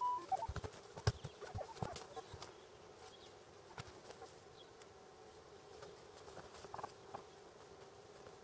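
A few dull knocks and scrapes of a spade digging into forest soil in the first two seconds, then a faint steady hum at one pitch with occasional small ticks.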